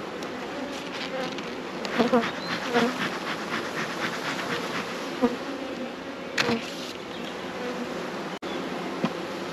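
A honeybee colony buzzing steadily from an open hive. About two seconds in there is a run of quick clicks and knocks, and a short loud hiss comes a little past six seconds.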